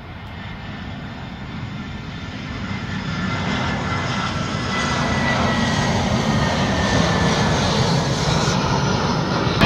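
Jet airliner's engines getting steadily louder as the aircraft approaches, with a high whine that slowly falls in pitch.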